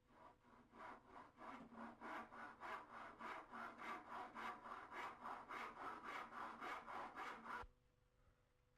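Hand saw cutting through a length of timber dado rail in steady back-and-forth strokes, about three a second, stopping abruptly about seven and a half seconds in.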